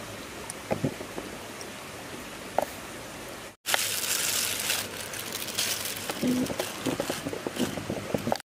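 Steady rush of a forest stream with a few light clicks. About three and a half seconds in the sound cuts out for an instant and comes back louder, with scattered crackles and light knocks over the water noise.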